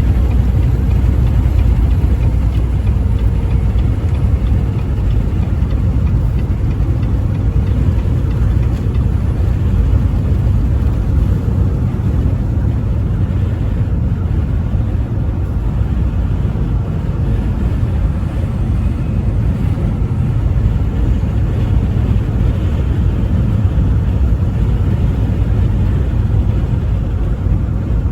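Steady engine and road noise of a vehicle cruising on the highway, an even low rumble that holds without change.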